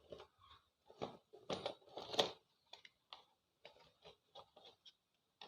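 Irregular light clicks and knocks of small equipment being handled and picked through, busiest about a second or two in, then a few sparser ticks.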